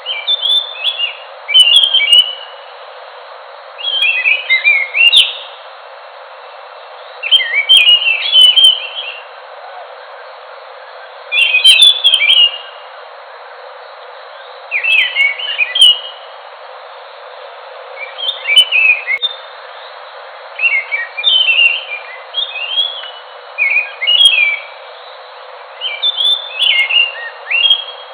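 Ground thrush singing: short, fast warbling phrases about a second or so long, repeated every three to four seconds, over a steady hiss.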